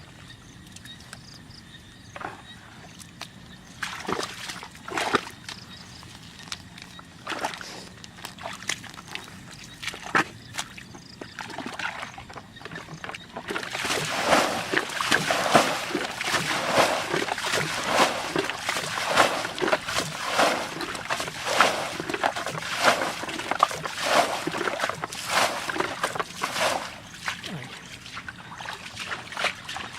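Water splashing and sloshing: a few separate splashes at first, then dense, continuous splashing from about halfway that eases near the end.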